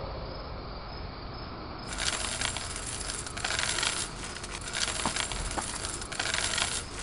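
Music fading out, then scuffling and rustling from people running and a cloth cape or sheet flapping, with scattered small clicks and clinks.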